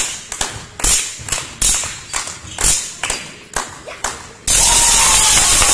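Irregular sharp thuds and taps echoing around a large sports hall during a handball game, about one or two a second. About four and a half seconds in, a sudden loud steady noise with a faint wavering tone takes over.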